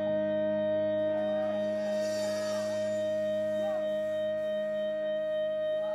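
Amplified rock band holding a sustained, steady drone note, with faint sliding, bending electric guitar notes over it and a brief high hiss about two seconds in.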